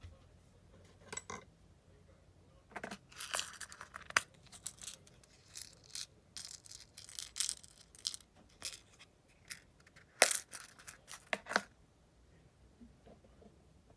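Fly-tying materials and tools being handled at the bench: irregular rustles, short tearing scrapes and clicks, with one sharp click about ten seconds in.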